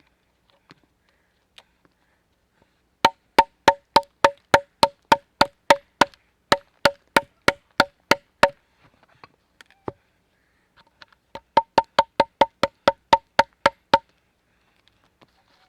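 Rapid, evenly spaced hammer blows on wood, about three a second, each a sharp knock with a short ringing note. There is a run of about seventeen blows, a pause, then about ten more.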